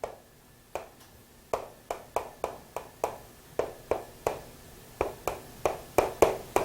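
A series of short, sharp taps at an irregular pace, about two to three a second: a writing implement striking a board or writing surface as an equation is written out.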